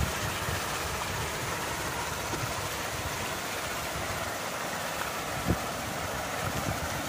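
A 2 hp four-paddle wheel aerator running, its paddle wheels churning and splashing the pond water in a steady rushing noise over a low motor drone. A single brief thump comes about three-quarters of the way through.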